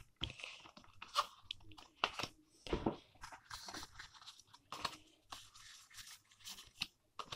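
A stack of Pokémon trading cards being thumbed through in the hands, the cards sliding and clicking against each other in soft, irregular ticks and rustles.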